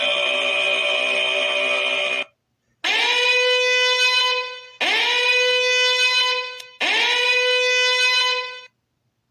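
A high-pitched, held 'eeee' squeal. One long squeal cuts off about two seconds in, then it repeats three times. Each repeat swoops quickly up in pitch at the start, holds steady for about two seconds and stops.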